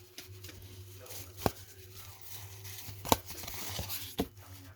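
1991 Topps baseball cards being flipped through by hand: soft card handling with three sharp clicks, about a second and a half, three seconds and four seconds in.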